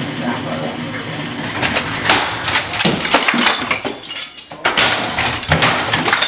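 Repeated crashes and bangs of objects being smashed and knocked over in a room, with clinks of glass and bottles, starting about one and a half seconds in.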